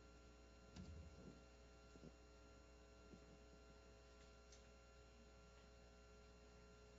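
Near silence: a steady electrical hum with a few faint, brief soft sounds about a second and two seconds in.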